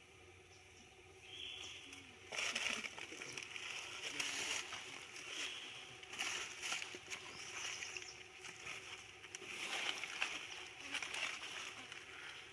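Irregular rustling and crackling, like something moving through dry leaves or foliage, starting a little over two seconds in and coming and going in bouts.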